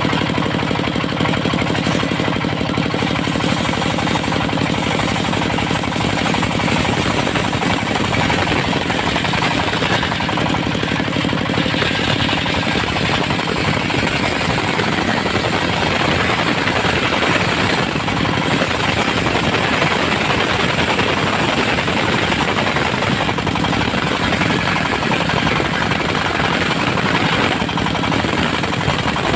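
Diesel-engined circular sawmill running with its saw blade ripping through dry teak. The engine runs steadily throughout. From about six seconds in, a dense hissing cutting noise builds over it and stays strong as the blade works through the tough, dry wood.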